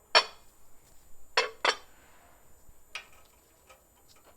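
Four short, sharp clinks of hard objects knocked together or set down on a surface: one, then a quick pair, then a softer one.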